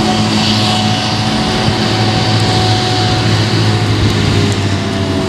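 Claas Jaguar 470 forage harvester chopping rye with a JCB Fastrac 4220 tractor and trailer running alongside: steady heavy diesel engine noise with a constant higher whine that drops slightly in pitch near the end.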